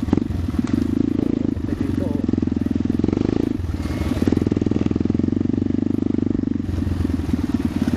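Trail bike engine fitted with a racing CDI and racing ignition coil, running steadily under way with a rapid even pulse. It eases off briefly a little under four seconds in, then picks up again, and the note shifts once more near the end.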